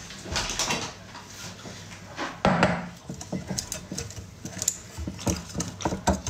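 Irregular clicks and knocks of kitchen bowls and utensils being handled while a cake batter is mixed, with one louder knock about two and a half seconds in.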